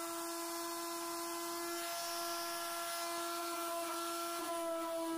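Electric quarter-sheet palm sander running steadily at full speed, a constant hum, used to smooth the jagged cut edge of a polystyrene foam board.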